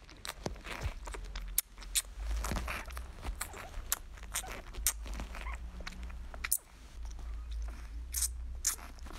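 Newborn puppy's mouth smacking and sucking at a milk-feeding syringe: irregular wet clicks and smacks over a low rumble of handling.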